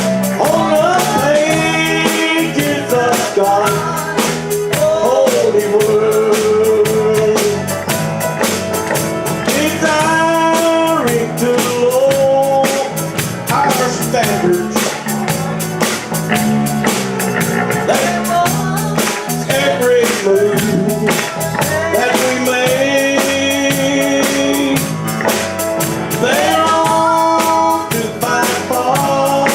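Live church band playing a country gospel song in a steady beat with drums, and a melody line that slides and wavers over it.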